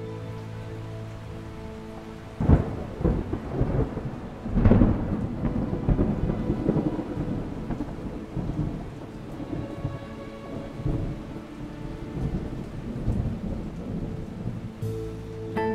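Steady rain with two claps of thunder, about two and a half seconds in and about five seconds in, each rolling into a long rumble that slowly fades.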